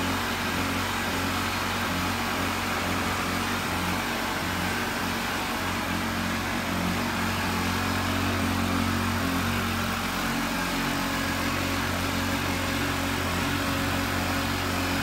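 A small engine running steadily at a constant speed, giving a continuous low hum.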